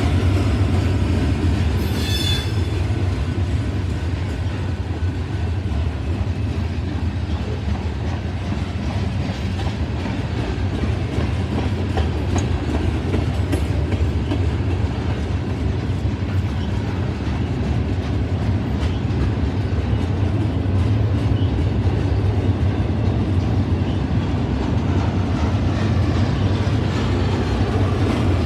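Freight cars of a mixed freight train (covered hoppers, tank cars, a boxcar) rolling steadily past: a continuous low rumble of steel wheels on rail, with a brief high wheel squeal about two seconds in.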